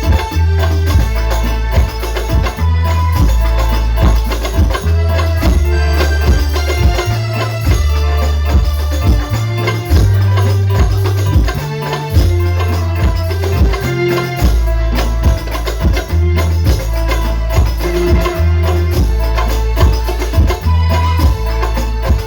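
Sholawat devotional music with hand drums and tambourine jingles over very heavy, booming bass, played loud through a sound system during a sound check.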